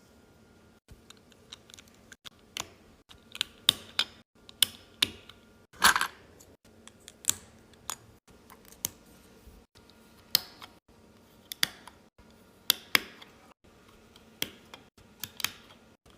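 Plastic Lego bricks clicking and clacking as they are handled and snapped together: irregular sharp clicks, roughly one or two a second, with a short rattle about six seconds in.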